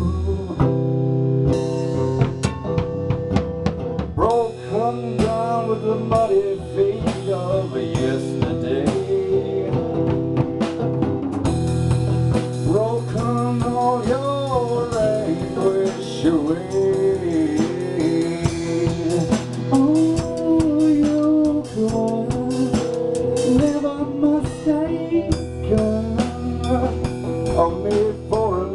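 Drum kit played with sticks, snare, toms and cymbals, in a blues-rock song with guitar.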